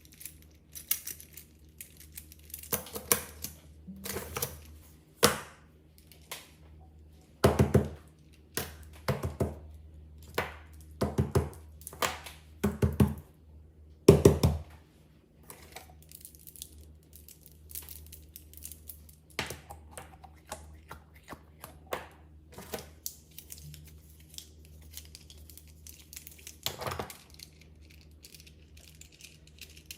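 Fidget toys and their plastic being handled at close range: irregular crinkling, clicks and short knocks as pieces are picked up and set down, the loudest knocks coming in a run around the middle.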